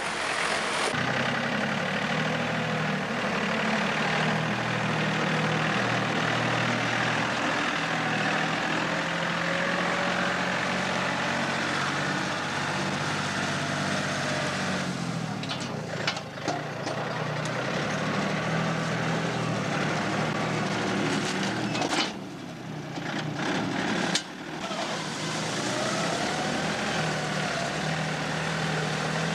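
Tractor engine running steadily. Twice midway its note briefly drops away, with a few sharp clicks.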